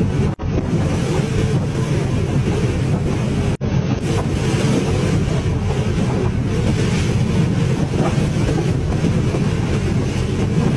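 Heavy seas washing over a fishing boat's deck: a steady, loud rush of water and wind with a deep rumble underneath. It cuts out briefly twice.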